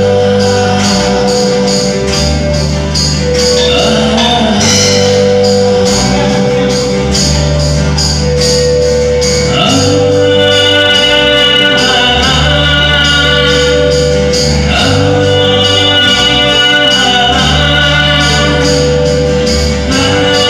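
Live band performing a song: a male singer over strummed acoustic guitars and an electric guitar, with sustained low notes changing every second or two and a steady percussion beat about twice a second. A held melodic line comes in more strongly about halfway through.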